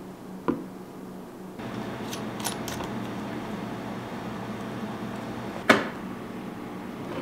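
Filled plastic milk-tea bottles handled and set down on a wooden counter: a light knock about half a second in, a few faint clicks a little later, and a louder knock near the end as a bottle is put down, over a steady low hum.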